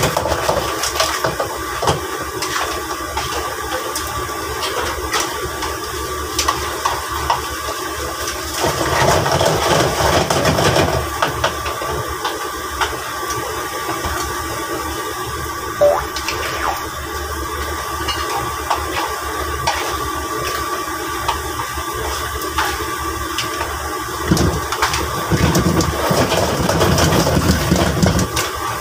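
Chili crab frying in a wok over a gas burner: a steady hissing sizzle with a constant thin hum and light clicks, swelling louder twice, about a third of the way in and near the end.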